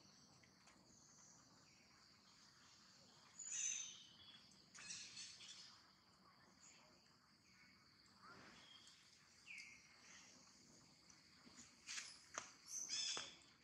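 Faint outdoor ambience: a steady high insect hiss with scattered bird chirps, and a few sharp clicks near the end.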